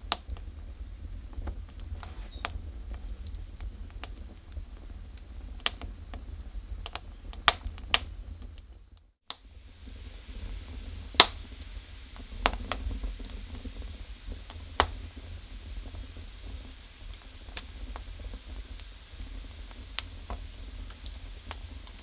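Split firewood burning in a brick Russian stove: scattered sharp crackles and pops over a steady low rumble. The sound cuts out briefly about nine seconds in, then the crackling resumes, with the loudest pop soon after.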